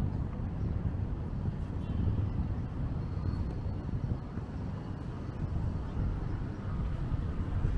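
Wind buffeting the microphone, a steady, gusty low rumble.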